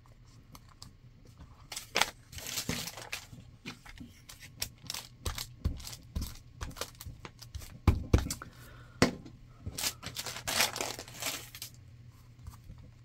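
Paper crafting sounds: a paper cutout and a sheet of brown paper being handled, rustling and crinkling, with a glue stick rubbed across the back of the cutout. Scattered light taps and a few soft thumps on the table, with longer rustles a couple of seconds in and again near the end.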